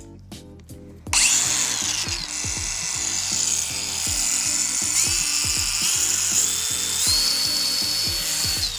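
DeWalt DCG416VSB 20V brushless variable-speed angle grinder with a diamond blade starting about a second in and grinding into a tile, a loud steady hiss with a high whine that steps up in pitch a few times, stopping near the end. Background music with a steady beat plays underneath.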